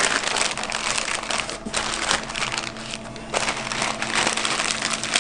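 Pink butcher paper crinkling and rustling as it is folded and rolled tightly around a smoked brisket, with a short lull about three seconds in.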